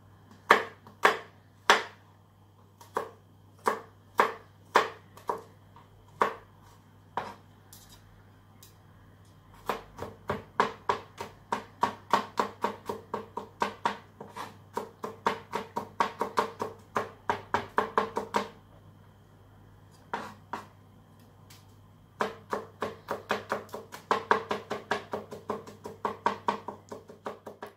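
Kitchen knife chopping garlic finely on a cutting board: a few scattered chops at first, then quick runs of about three chops a second, broken by a short pause about two-thirds through.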